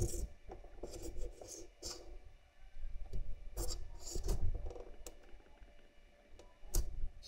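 A small kitten moving about on plush bedding, with light scratching and rustling from its paws and claws on the fabric in short, irregular bursts and a few sharp clicks.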